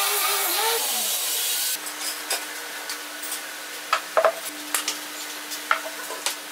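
A handheld power sander with a round sanding disc running across a wooden tabletop, its motor whine wavering under load, cuts off abruptly about two seconds in. Then a brush spreads oil finish on the wood, with soft rubbing strokes and a few sharp clicks and taps, a cluster of them about four seconds in.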